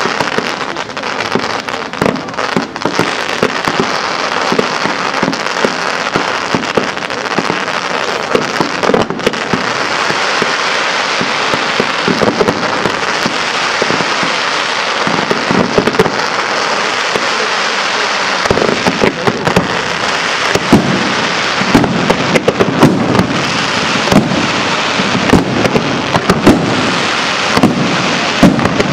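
Professional fireworks display: a rapid, unbroken stream of launches and bursts, many sharp reports running together over a hissing crackle. From about two-thirds of the way in, deeper, louder booms from larger shells join the barrage.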